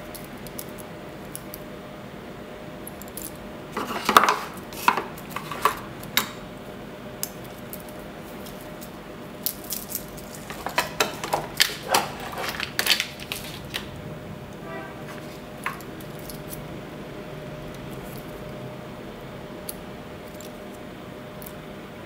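Metal watch bracelet of steel and wood links clinking and clicking as the watch is handled, in two clusters of light clicks and knocks, about four to six seconds in and again about ten to fourteen seconds in.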